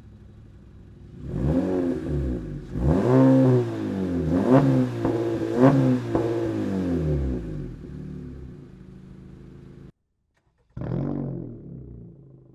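Honda Civic Sport hatchback's 2.0-litre naturally aspirated four-cylinder, breathing through a muffler-less REMARK Link Loop stainless catback exhaust, is revved from idle in several quick blips and then settles back to idle. After a brief break, one more rev falls back to idle near the end.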